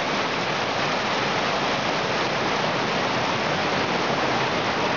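Small waterfall cascading over rocks into a stream: a steady rush of falling water.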